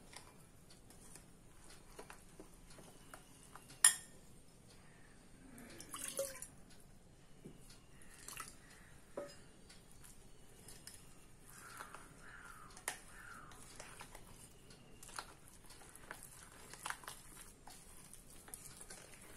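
A metal spoon stirring thick idli batter in a glass bowl: faint wet mixing with scattered clinks and taps of spoon on glass, the sharpest about four seconds in.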